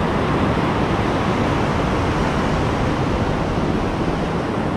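Steady rush of ocean surf breaking along a sandy beach, with wind noise on the microphone.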